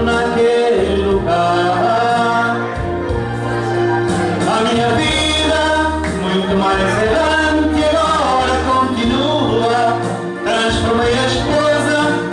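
Music: a song with singing over sustained bass notes.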